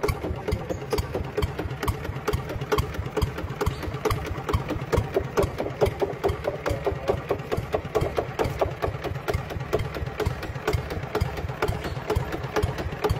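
Engine idling steadily, with a rapid, even knocking beat.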